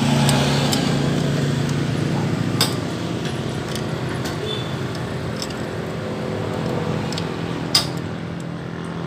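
Light metallic clinks of a Yamaha Mio M3's cam sprocket and timing chain being worked into place by hand on the cylinder head, with a sharp click near the end. A steady low hum runs underneath.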